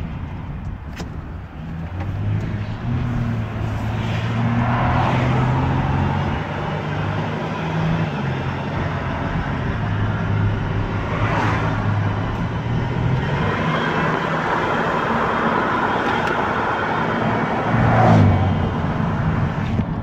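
2011 Toyota Sienna AWD minivan accelerating on the road, heard inside the cabin: engine and road noise with a steady whine under it. The whine grows worse the more the van accelerates. A mechanic's stethoscope check traced it to the front of the rear differential, which the owner takes for a defective viscous coupler.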